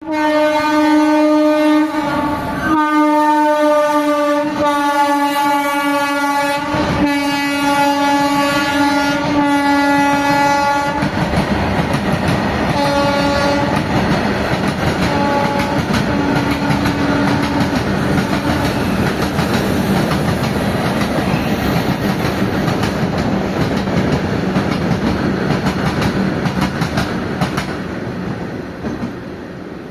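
Horn of an Indian Railways WAG-5 electric locomotive sounding in long blasts, one after another with brief breaks, for about the first eleven seconds. Then the train passes, wheels clattering over the rail joints, with a few short horn toots, and the noise fades near the end.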